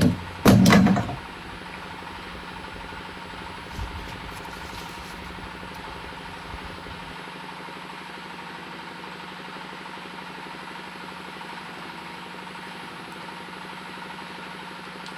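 A loud, short sound in the first second, then a steady machine hum with a constant tone. The low rumble under the hum drops away about seven seconds in. Its source is unknown; it is heard as a strange sound.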